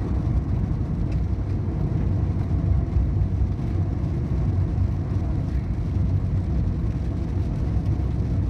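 Car driving, heard from inside the cabin: a steady, low rumble of road and engine noise.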